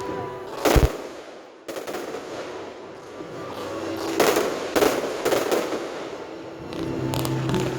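Aerial fireworks bursting overhead: a heavy boom about a second in, then clusters of rapid crackling reports from about four seconds on.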